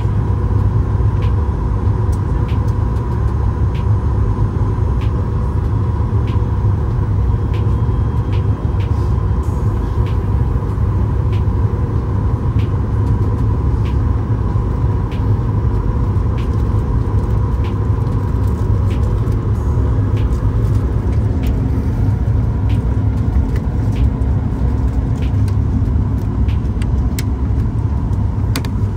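Steady cabin noise aboard a Boeing 737 MAX 8: a loud low rumble with a steady whine. Faint light ticks come about once a second.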